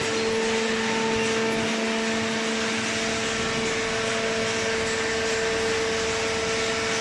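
Small hydraulic cardboard baler running: its electric motor and hydraulic pump give a steady hum with a held whine that does not change.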